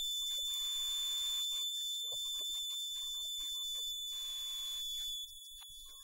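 A steady high-pitched tone with faint low rumble beneath it; the level drops a little about five seconds in.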